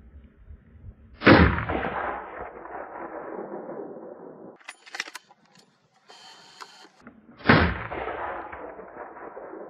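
Two rifle shots about six seconds apart, each followed by a long rolling echo that dies away over a few seconds, with a few sharp clicks between them.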